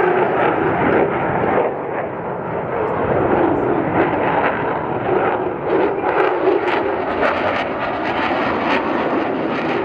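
Aircraft engine noise, loud and steady: a continuous rushing sound.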